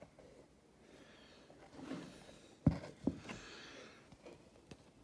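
Faint handling noises, with two sharp knocks about a third of a second apart a little past halfway, followed by a brief rustle and a few small ticks.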